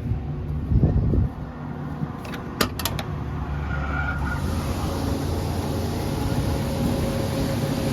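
Combine harvester running steadily with a low engine hum. A few sharp clicks come a couple of seconds in, and a rushing hiss joins about halfway through.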